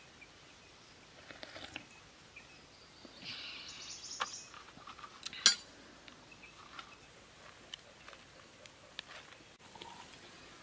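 Scraping and light knocking as a green coconut is handled and its husk picked open by hand, with one sharp click about five and a half seconds in, the loudest sound.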